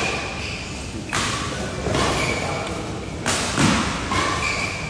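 Badminton rally: rackets strike the shuttlecock with sharp smacks about two seconds apart, between short squeaks of court shoes.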